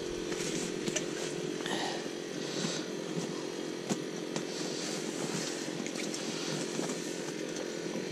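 A steady low mechanical hum, with a few faint clicks as a pair of forceps is handled at a hooked fish's mouth.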